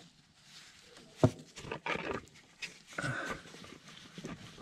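A sharp knock about a second in, then a few short grunts and breaths from a man straining to reach up under a side-by-side and unscrew a differential drain plug.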